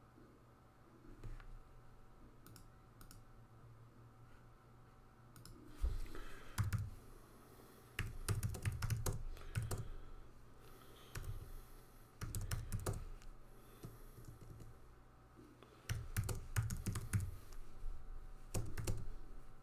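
Typing on a computer keyboard in several short bursts of rapid clicks, beginning about six seconds in, with pauses between them.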